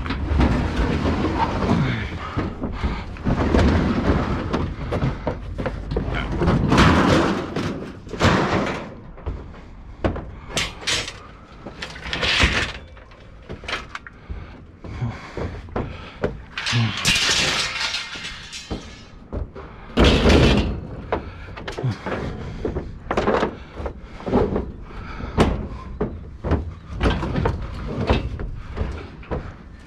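Scrap metal clanking and banging: a long run of irregular metal crashes, clatters and thuds, with a low rumble underneath. Several heavier crashes stand out, one about seven seconds in, one about twelve seconds in and one about twenty seconds in.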